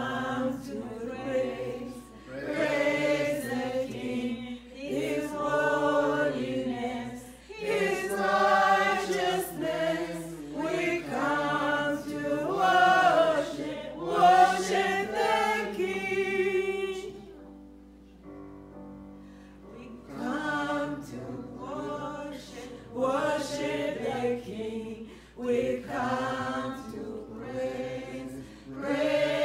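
A woman singing a worship song in phrases, with a gap of about two seconds a little past halfway.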